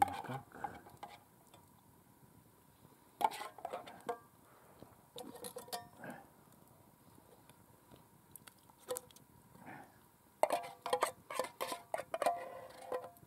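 A tin can being cut open with a hand can opener: sharp metallic clicks and scrapes with a ringing note from the can, in a few short runs and then a longer quick series near the end as the lid is worked open.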